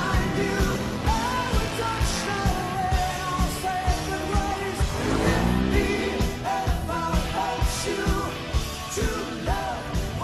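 Song with a sung vocal over a steady drum beat; no motorcycle engine stands out above the music.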